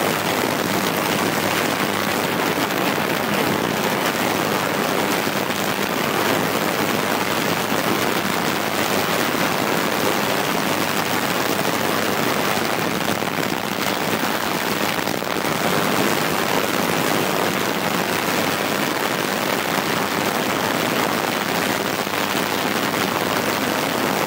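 Ultrasonic cleaning tank running with a detergent bath: a steady, loud hiss from the ultrasound cavitating the solution, unchanging throughout.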